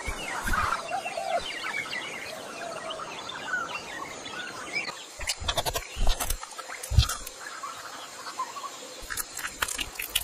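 Jungle ambience of animal calls and bird chirps, mostly in the first half, then a run of sharp clicks and taps with a few low thumps from about halfway through.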